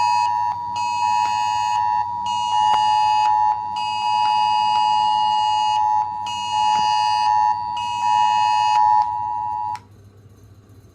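Mobile phone sounding the UK Emergency Alert attention tone, loud, in long on-off pulses. It stops abruptly about ten seconds in. This is the national test alert, which needs no action.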